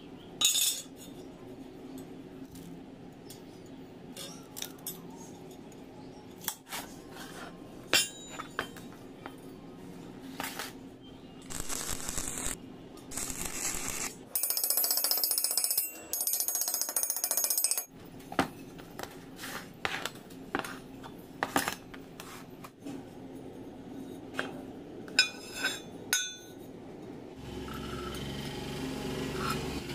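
Scattered clinks and knocks of metal being handled, with a few seconds of loud hissing crackle about halfway through.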